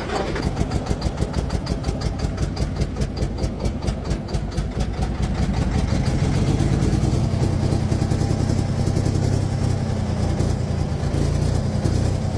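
A Volvo truck's diesel engine being cranked by its starter, a rhythmic chugging of about five beats a second, until it catches about six seconds in and runs steadily. Its fuel filter has been draining plain water, the sign of water in the fuel.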